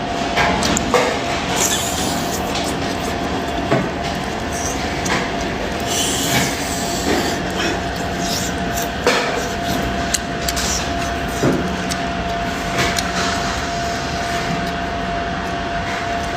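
Close-miked eating of braised squid: irregular chewing and biting clicks and crunches over a steady background hum.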